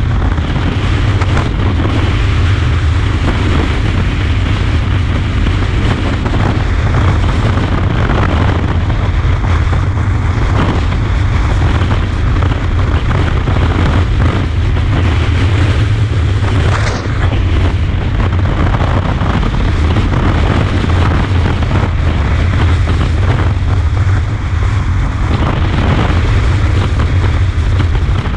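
Strong crosswind buffeting the microphone of a GoPro on a moving motorcycle, a loud, steady low rumble with hiss above it.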